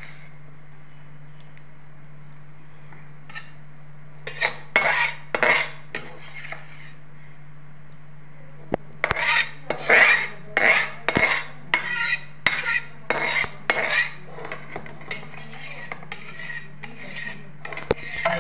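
A metal perforated skimmer scraping around the inside of an aluminium kadhai in rough strokes, about two a second. There is a short spell of strokes, a pause, then a longer run that grows fainter towards the end. A steady low hum runs underneath.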